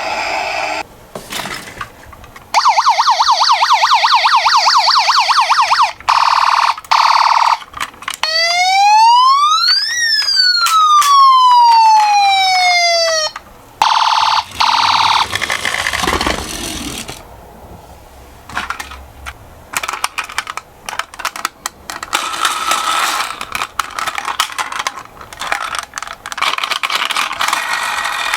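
Toy ambulance's electronic siren: a fast warble for a few seconds, a couple of short steady tones, then one slow wail that rises and falls, and another short tone. After that come irregular clicking and rattling, typical of small toy cars rolling down a slope.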